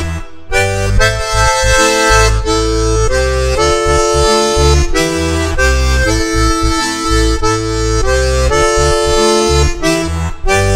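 Bayan, a Russian chromatic button accordion, playing a melody in quick changing notes on the right-hand buttons over low bass notes and chords from the left-hand buttons.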